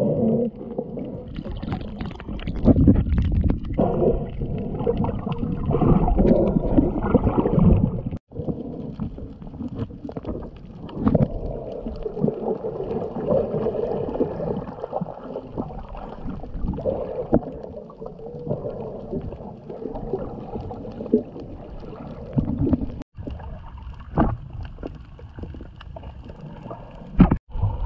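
Muffled underwater sound picked up through an action camera's housing: water swirling and gurgling, with low rumbling and a wavering hum. It cuts out for an instant three times.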